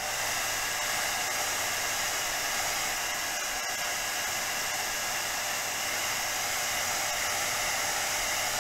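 Electric hot-air blower running steadily, a rush of air with a fan whine. It is warming the screen adhesive so the glass digitizer can be lifted.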